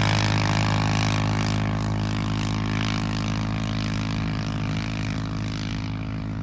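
A vehicle engine running at a steady, unchanging speed and fading slowly.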